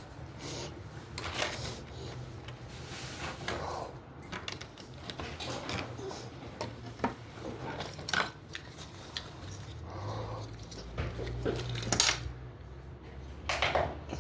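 Scattered light clatter, knocks and rustling of debris being moved and stepped on, over a low steady hum, with a few louder clattering bursts.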